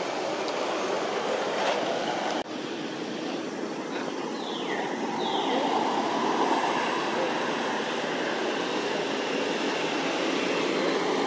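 Steady rushing outdoor background noise, dipping for an instant at a cut about two and a half seconds in, with two quick falling whistles around the middle.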